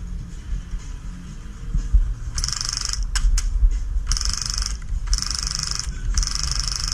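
Motorised mini gun firing in short bursts of rapid mechanical rattling. There are four bursts of under a second each, the first about two and a half seconds in, with a couple of sharp clicks after the first.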